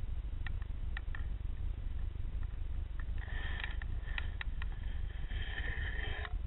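Underwater sound picked up by a submerged camera: a steady low rumble of water, with a few sharp clicks in the first second or so and two short high-pitched buzzy stretches, about three and five and a half seconds in.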